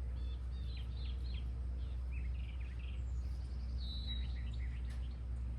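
Wild birds singing, with many short chirps and warbled calls and one longer whistled note a little under four seconds in, over a steady low background rumble.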